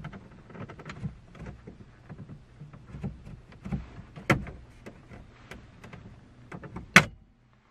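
Plastic radio trim bezel on a Dodge Caravan dashboard being pried off by hand: a run of small clicks and creaks of plastic, with two louder snaps about four and seven seconds in as the retaining clips pop loose.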